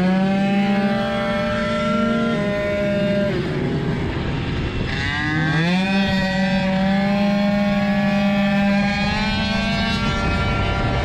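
Small two-stroke engine of a Piaggio Zip SP scooter heard from the rider's helmet, running at high revs on track. It climbs to a steady high pitch and lets off about three seconds in, then revs up again about five seconds in and holds until near the end, with wind noise underneath.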